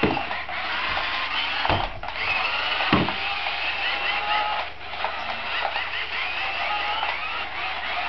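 Small electric motors of toy remote-control cars whining, the pitch repeatedly rising and falling as they speed up and slow down. A few dull thumps in the first three seconds.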